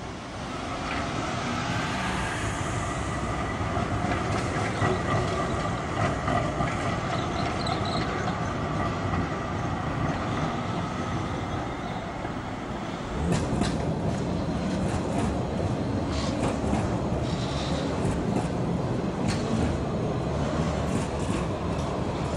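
Electric street trams on curved junction track: first a tram running through the junction with steady high wheel squeal over a rumble. About halfway through, an articulated tram-train passes close with a heavier rumble, its wheels clacking sharply over the rail joints and points.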